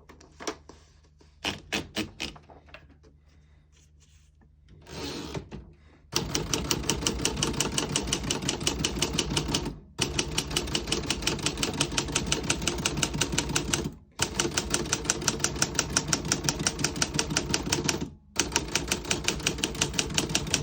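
1954 Remington Quiet-Riter portable typewriter being typed: a few scattered key clacks at first, then, from about six seconds in, fast, even runs of keystrokes in four stretches separated by brief pauses.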